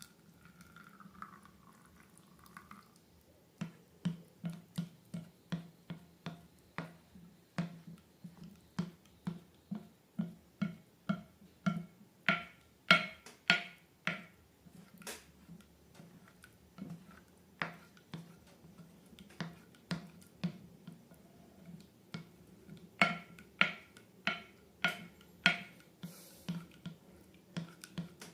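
Slime being squeezed and worked by hand, giving a run of sharp wet clicks and pops at about two a second that briefly thin out partway through.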